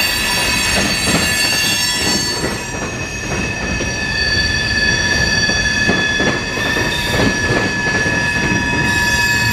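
A freight train's loaded centerbeam lumber cars rolling past at low speed. A steady, high-pitched multi-tone wheel squeal rides over the low rumble of the wheels on the rails, the sound of steel wheel flanges grinding through a curve.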